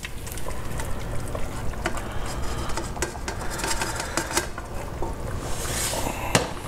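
Chunks of potato and vegetables sliding out of a wok and plopping into the liquid of a stew pot, with scraping and clinks of metal as the pan is shaken and scraped empty. A sharp knock near the end as the wok is set down on the stovetop.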